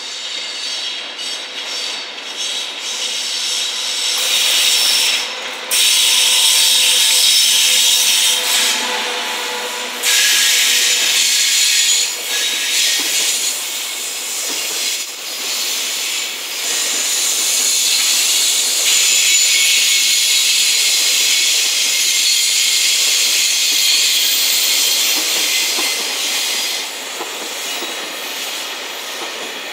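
Container freight train hauled by an EF210 electric locomotive passing close by: steel wheels running on the rails in a loud, steady hiss, with thin squealing tones at times. The noise builds over the first few seconds as the locomotive arrives, then holds as the wagons roll past.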